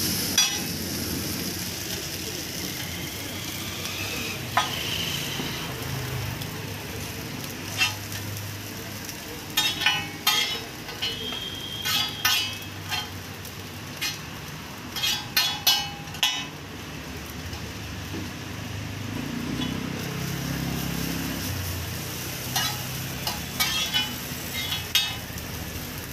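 Noodles sizzling on a large flat iron griddle as a slotted metal spatula tosses and spreads them. Clusters of quick metal clinks and scrapes come as the spatula strikes the griddle, about a third of the way in, around the middle and again near the end.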